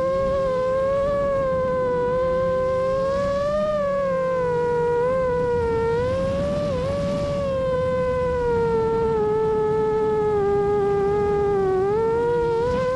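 FPV quadcopter's motors and propellers whining with a steady buzzing tone whose pitch wavers up and down with the throttle. The pitch climbs about three to four seconds in and dips sharply for a moment around seven seconds.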